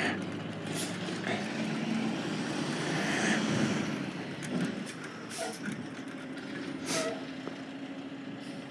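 Garbage truck's engine running, with a hiss of air brakes swelling about three seconds in and a few sharp knocks.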